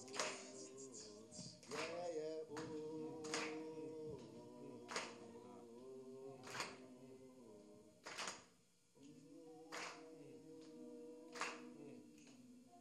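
A cappella singing of long held notes, with a single sharp hand clap keeping a slow beat about every second and a half. The held notes break off briefly just past the middle and then resume.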